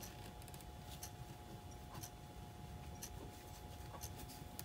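Quiet handling of cut fabric pieces and straight pins on a cutting mat: a few faint, irregular light clicks and rustles, over a faint steady hum.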